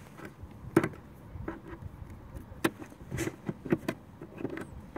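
Light knocks and clicks of hard plastic as the kayak's sonar pod console and fish finder mount are handled and latched in place, about half a dozen spread out.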